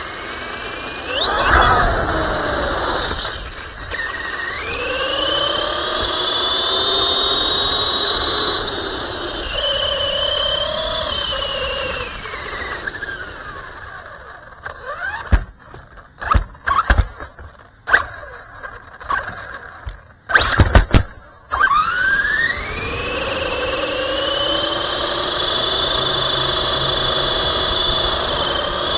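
RC car's electric motor whining, its pitch rising and falling with the throttle as the car speeds up and slows. About halfway through the whine drops back and a run of sharp knocks and clicks comes, the loudest of them near the end of that stretch. Then the whine climbs again.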